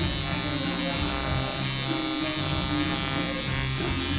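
Electric tattoo machine buzzing steadily as its needle works ink into skin.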